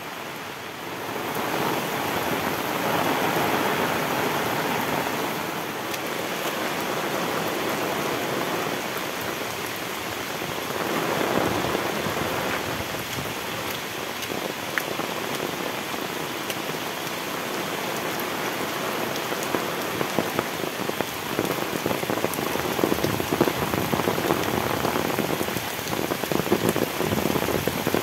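Heavy tropical rain falling steadily, a dense hiss that swells about a second in. Sharper nearby drop impacts stand out more and more often in the second half.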